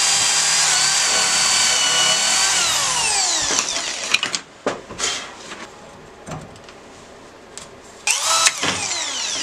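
DeWalt cordless drill running at full speed, boring into a block of wood, then its whine falls away as it spins down about two and a half seconds in. Scattered clicks and knocks of tools being handled follow, with a short loud whir near the end.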